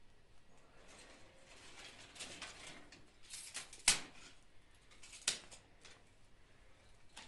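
Thin dry twigs rustling and being snapped by hand, with two sharp, loud snaps a little under four seconds in and again about a second and a half later.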